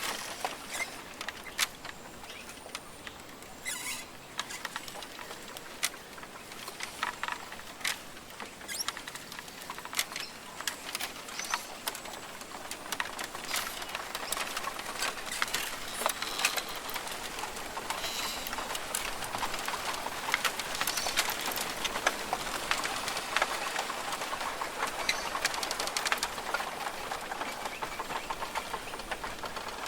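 Rainforest ambience: a dense patter of sharp ticks and clicks over a steady hiss, thickening about halfway through, with occasional short bird calls.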